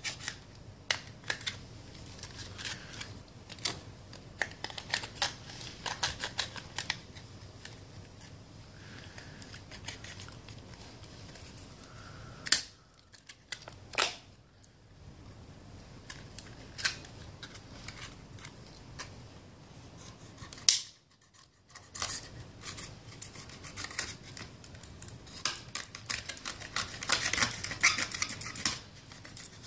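Utility knife blade cutting and scraping through a thin plastic bottle wall, while the plastic crackles and crinkles as it is handled: many small irregular clicks and crackles. The sound stops briefly twice.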